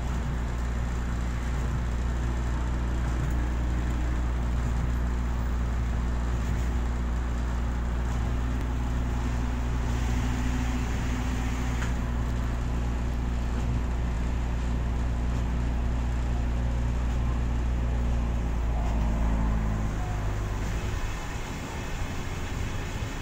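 Yui Rail monorail train running along the guideway, heard from the cab: a steady low running hum with a few steady tones over it. About twenty seconds in, the tones step down in pitch and the low hum drops away.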